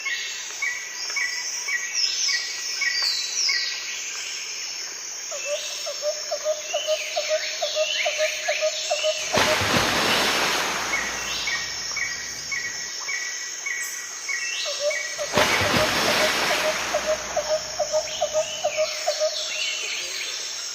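Birds calling: rows of short repeated chirps and quick falling whistles, with a low, rapid pulsing trill in two stretches. Two broad rushes of noise, each about a second and a half long, come about nine and fifteen seconds in.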